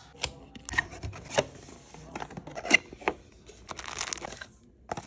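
Cardboard packaging being opened by hand: a string of sharp clicks and snaps, the loudest a little before three seconds in, then a plastic bag crinkling around four seconds in as it is handled.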